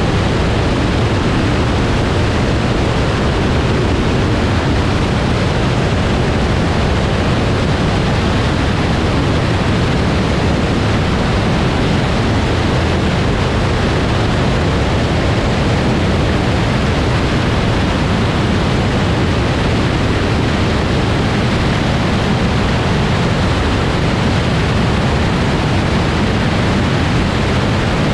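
Grumman Tiger light single-engine plane in flight, picked up by a camera mounted outside on the tie-down ring: a loud, steady rush of slipstream wind with the engine and propeller droning underneath, heaviest in the deep end.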